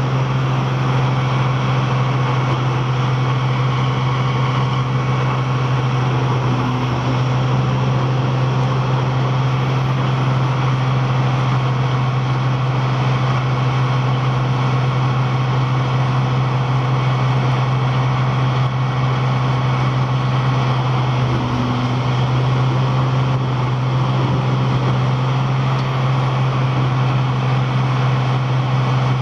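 Heavy machine engine of a wood-processing machine running steadily at constant speed, a loud even low hum with a wash of mechanical noise over it.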